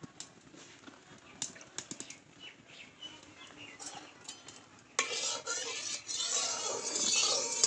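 Light clinks and taps of a metal spatula against an aluminium kadai as oil is spread round the pan. About five seconds in, background music starts abruptly and carries on over the pan sounds.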